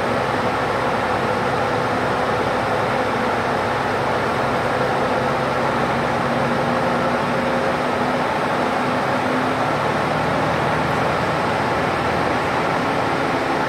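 Single-decker city bus running on the road, heard from inside near the front: a steady engine drone over road noise, the drone's pitch changing about ten seconds in.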